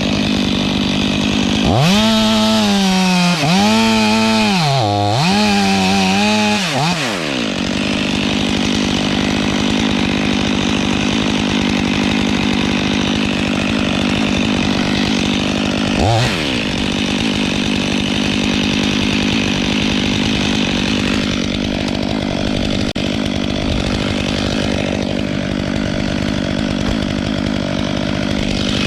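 Chainsaw running steadily. About two seconds in, a saw engine's pitch dips and rises several times for about five seconds, then falls away; it glides briefly once more about halfway through.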